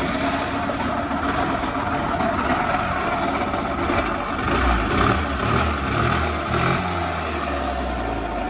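Suzuki Access 125 scooter's single-cylinder engine running just after a start, rising and falling in pitch in the middle as it is revved a little. The noise it makes is the one the mechanic traces to a worn crankshaft bearing.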